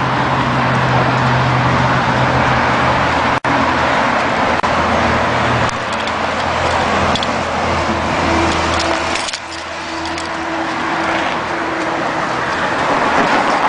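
Steady highway traffic noise from the Pacific Coast Highway: cars and trucks running past with a constant low engine hum, broken by a very brief gap about three seconds in and easing slightly after about nine seconds.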